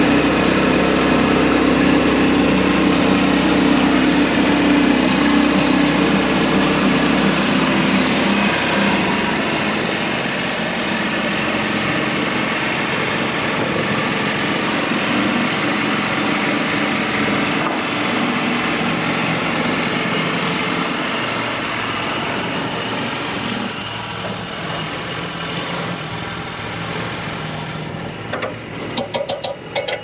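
Sawmill engine running steadily under power, a little quieter after about eight seconds, with a rapid rattling that begins near the end.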